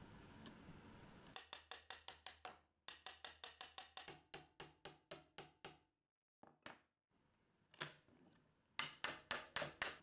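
Runs of quick, sharp, evenly spaced clicks, about six a second. They stop briefly about a third of the way in, pause again past the middle, and return in a last short run near the end.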